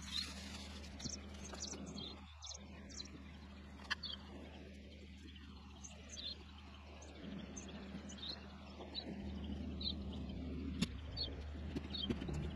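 Small birds chirping in short, high chirps every second or so, over a faint low steady hum, with a few faint knocks.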